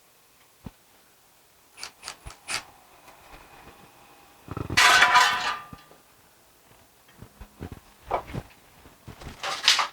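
Metal tools and parts being handled on a workbench: scattered clinks and knocks, with one louder rasping burst lasting about a second midway.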